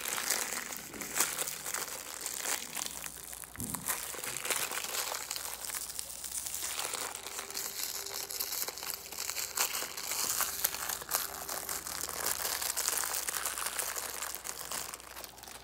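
Thin plastic packaging crinkling and rustling continuously, with many small crackles, as an MRE spoon is worked out of its clear plastic sleeve by hand.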